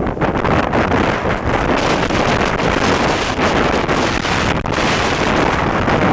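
Storm-force wind buffeting the microphone in a loud, steady, gusting roar.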